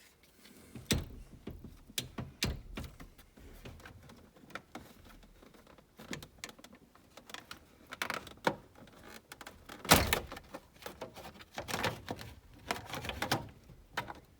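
Hard plastic steering column trim cover being worked loose and handled in a truck cab: irregular clicks and knocks, the loudest about ten seconds in.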